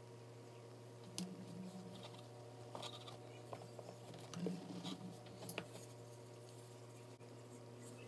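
Faint scraping and a few light taps as a wooden spatula spreads cheesecake batter in a metal springform pan and is set down, over a steady low hum.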